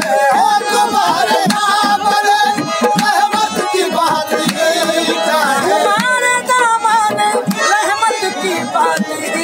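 Qawwali performance: a sung melody over harmonium, with tabla drumming throughout.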